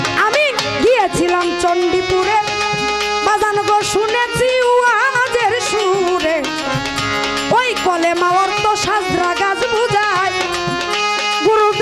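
A woman singing a Baul folk song into a microphone in a wavering, ornamented melody with sliding notes, over drum accompaniment.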